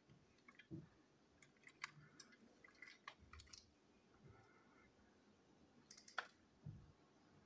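Near silence with faint, scattered clicks and taps of a plastic Plarail Percy toy engine being handled, the sharpest click about six seconds in.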